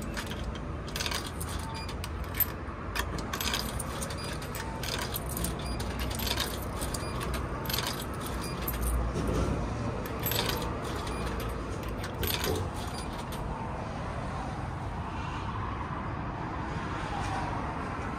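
Coins fed one at a time into a vending machine's coin slot, a run of sharp clicks and clinks as each drops into the coin mechanism, stopping about two-thirds of the way through. A steady low rumble runs underneath.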